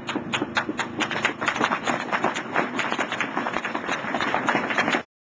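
Audience applauding: many hands clapping in a dense, uneven patter that cuts off suddenly near the end.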